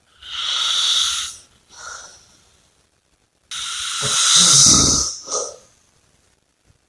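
A sleeping person breathing heavily and snoring: a long airy breath, a shorter faint one, then about three and a half seconds in a louder snore with a low rattle, ending in a short puff.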